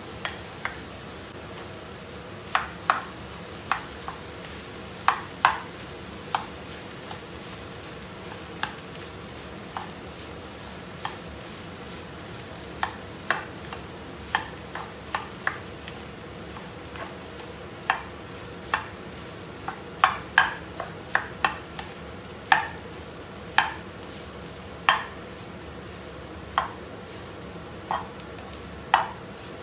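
Plastic spatula knocking and scraping against a nonstick wok while stir-frying fried rice, irregular sharp taps, sometimes in quick pairs, over a steady sizzle from the pan.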